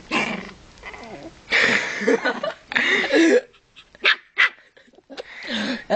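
Dogs, an American Staffordshire mix and a Pekingese, barking in a scuffle: rough bursts of barking in the first half, then two short sharp barks about four seconds in.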